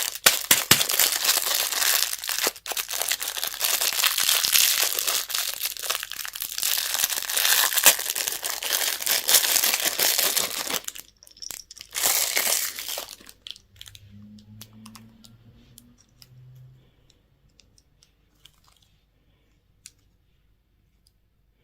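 A candy or toy wrapper being crinkled and torn open, with dense rustling for about the first half, a short burst after it, then scattered small clicks and light rustles.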